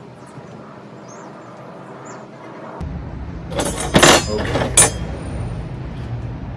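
Metal barbecue skewers clinking against each other as they are handled on a table: a rattling cluster of clinks, with two sharpest about a second apart. A low steady rumble comes in a little before them.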